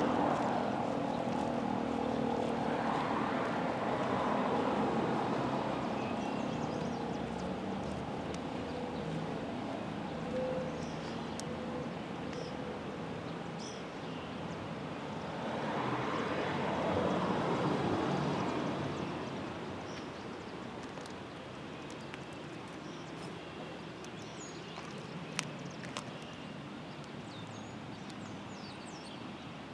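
Federal Signal Model 3 rotating tornado siren winding down at the end of its alert test, its tone dying away. The sound swells twice, a few seconds in and again past the middle, as the turning head sweeps past, then sinks to faint outdoor background with a few small clicks near the end.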